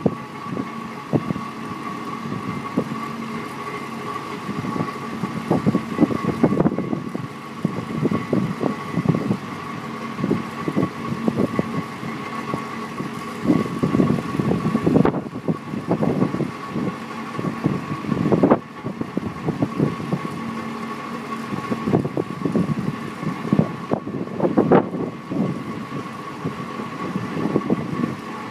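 Truck engine idling steadily while the end dump's hoist lowers the raised aluminium box, with a steady high whine throughout. Wind buffets the microphone in irregular gusts.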